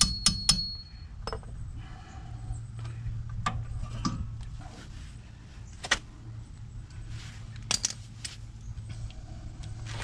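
The last two blows of a hammer striking the rusted rear wheel hub, each ringing metallically and fading within about a second. Then scattered clinks and clicks of tools and metal parts being handled, with two louder sharp clicks near the middle and the end.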